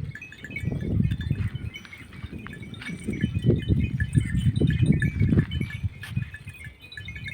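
A flock of sheep on the move: small neck bells tinkling unevenly over the shuffle and thud of many hooves.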